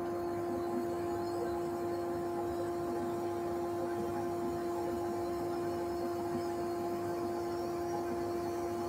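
Steady machine hum of a running wood lathe and workshop dust extractor, one low tone held level throughout over a whooshing airflow.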